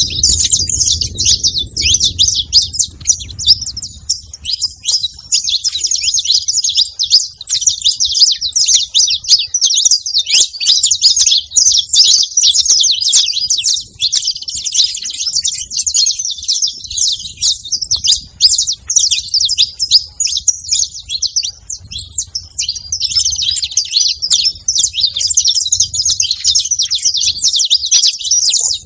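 A flock of saffron finches chirping and chattering, many high calls overlapping in a dense, unbroken stream.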